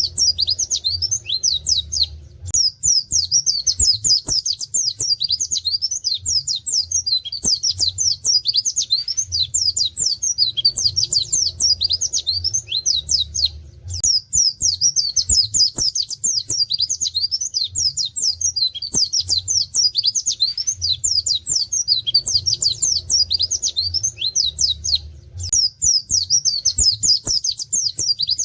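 A caged white-eye (pleci) singing long, fast runs of high chirps in the 'wit wit' canary-like style, with a short pause about every eleven seconds.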